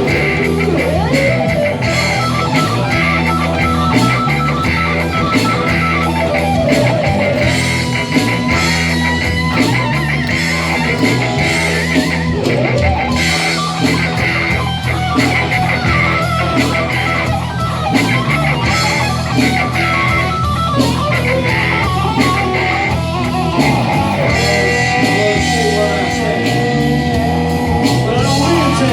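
Rock band playing, with electric guitar to the fore over a steady bass line and drums.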